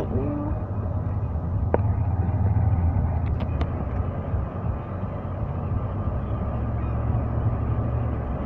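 Steady low rumble of a moving pickup truck's engine and road noise heard from inside the cab, with a few faint clicks from the camera being handled.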